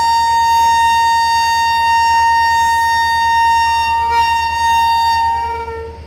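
WAP7 electric locomotive's air horn sounding one long, shrill, high-pitched blast that wavers and dies away near the end, over the low rumble of the moving train.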